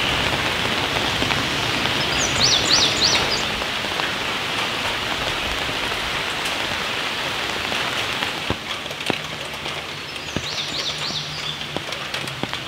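Steady rain falling, an even hiss with scattered louder drops. A bird gives a short run of three or four quick high chirps twice, about two and a half seconds in and again about ten seconds in.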